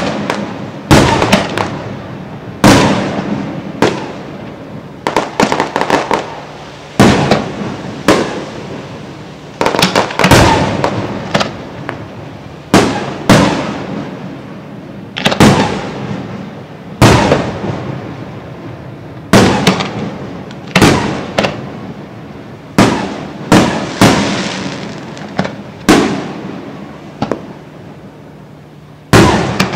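Aerial fireworks display: a steady run of shell bursts, loud booms every second or two, often in quick doubles and triples, each trailing off in an echoing rumble.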